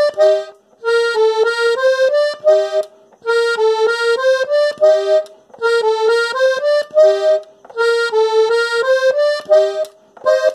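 Button accordion playing a single-line melody, one short phrase repeated about four times with brief pauses between.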